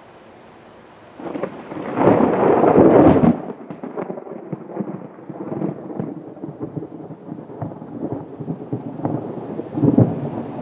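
Thunder: a loud clap about a second in that rolls on as an uneven rumble, swelling again near the end.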